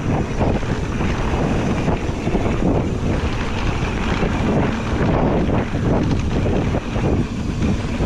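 Wind buffeting the camera microphone over the steady rumble of an electric mountain bike rolling fast down a dusty dirt trail.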